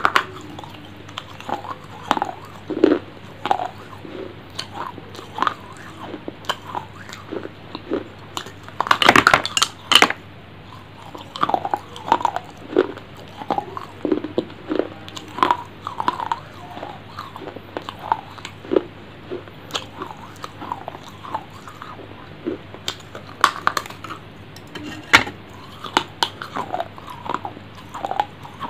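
Close-miked eating: a person biting and chewing, with irregular short crunches and mouth sounds right at a clip-on microphone, and a loud flurry of crunching about nine seconds in.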